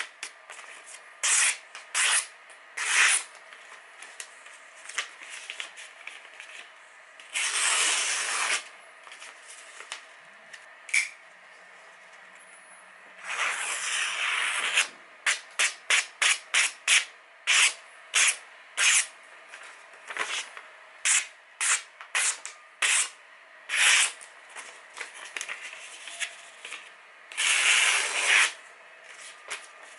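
A freshly sharpened folding pocket knife slicing through glossy catalogue paper as a sharpness test. It makes many short, quick swishing cuts, mostly in a fast run through the middle, and three longer drawn-out slices: a few seconds in, about halfway, and near the end.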